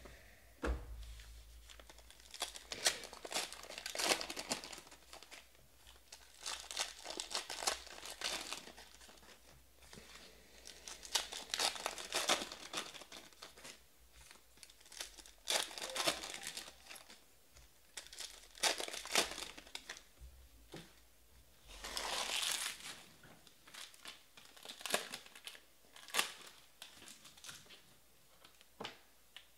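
Trading-card pack wrappers crinkling and tearing as packs are opened, in about nine separate bursts a few seconds apart, with quiet handling between them.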